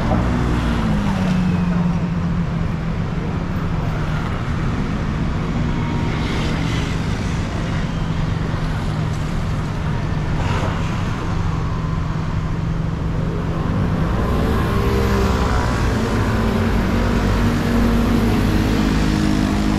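City street ambience: a steady low hum of motor vehicle engines, with passersby's voices now and then.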